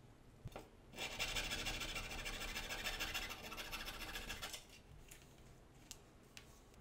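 Fine-bladed frame saw cutting through a plastic syringe barrel with rapid short strokes, starting about a second in and lasting about three and a half seconds. A few light clicks follow as the cut syringe is handled.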